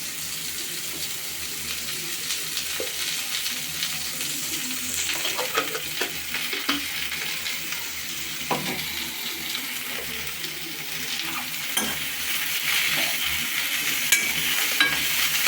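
Pointed gourd (parwal) frying in oil in a pan, sizzling steadily, with a spoon scraping and knocking against the pan now and then as it is stirred.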